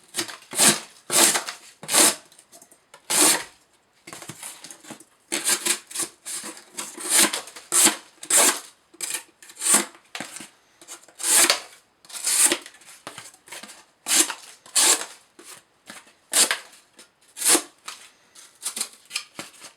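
The recurved 154CM steel blade of an Emerson Mini Commander folding knife slicing through cardboard in repeated strokes, roughly one a second, each a short dry scraping rasp.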